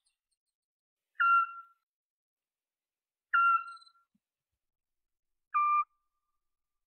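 An owl giving short whistled notes: three single toots about two seconds apart, each dipping quickly in pitch at the start and then held briefly.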